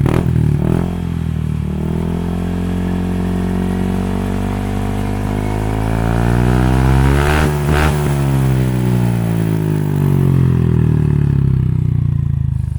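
Yamaha NMAX scooter's single-cylinder engine through a JVT V3 adjustable exhaust set fully open, its loudest setting, revved up slowly to a peak about halfway through and then falling back to a lower speed. Really loud.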